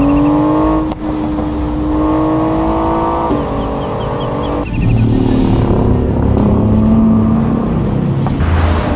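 A vehicle engine running, its pitch climbing slowly, then changing abruptly to a lower, rougher engine sound about halfway through.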